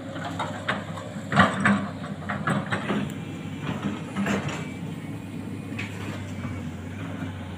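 Hydraulic excavator's diesel engine running steadily, with a cluster of irregular knocks and clanks from about a second in until past four seconds, the loudest near the start of the cluster.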